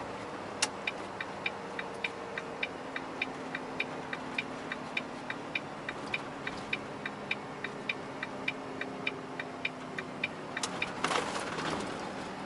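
Truck's turn-signal indicator ticking evenly, about three clicks a second, over the steady running noise of the cab, then stopping near the end, followed by a brief noisy rustle or clunk.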